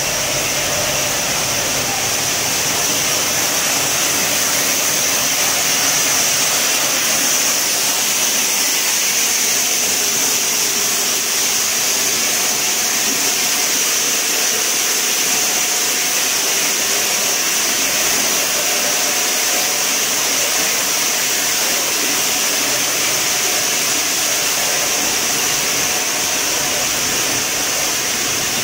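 Steady machinery noise of a running bottled-water filling and conveying line: a continuous, even whir and hiss with no breaks.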